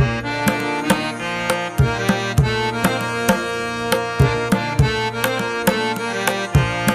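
Instrumental background music: a steady beat of drum strokes under sustained melodic instruments.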